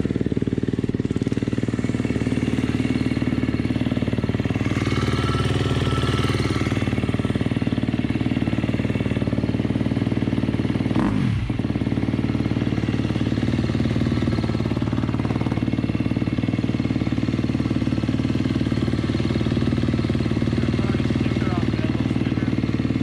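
2019 KTM 250 SX-F's single-cylinder four-stroke engine idling steadily through a freshly fitted FMF Factory 4.1 full exhaust. About halfway through, the engine note briefly dips and comes back.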